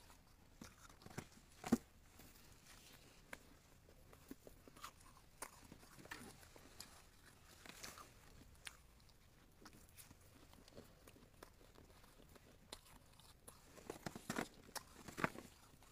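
Mouthfuls of snow being bitten and chewed: scattered faint crunches, a sharper one about two seconds in and a cluster of louder crunches near the end.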